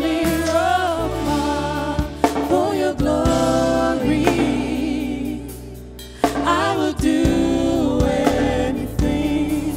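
Live gospel worship music: a woman sings the lead melody into a microphone, with held, wavering notes, over sustained keyboard chords and other singers.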